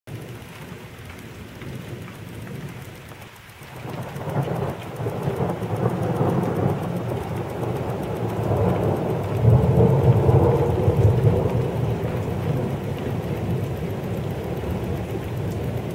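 Thunderstorm: steady rain with a long rumble of thunder that swells from about four seconds in and is loudest near the middle, then eases but keeps rolling.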